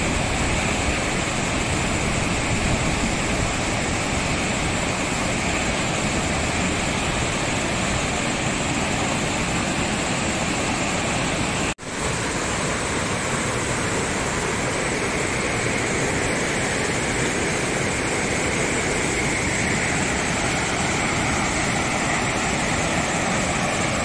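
River water rushing steadily over boulders in small cascades, with a short dropout about halfway through.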